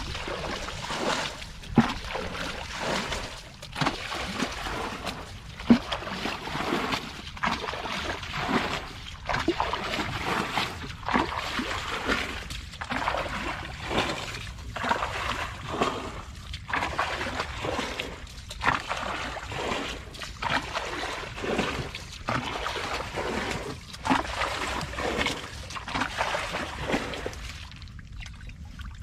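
Plastic bucket bailing water out of a shallow muddy pond: a repeated scoop-and-splash about once a second as the water is flung out, draining the pond. The splashing stops shortly before the end.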